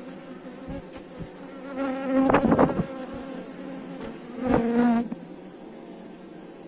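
Honeybees buzzing: a steady hum, with two louder buzzes as bees fly close by, the first about two seconds in and the second about four and a half seconds in.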